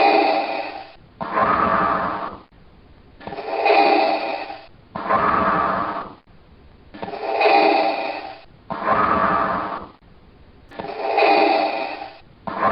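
Darth Vader's respirator breathing sound effect: a slow, hissing mechanical inhale and exhale through the mask, each breath one to two seconds long, repeating steadily about every three and a half to four seconds.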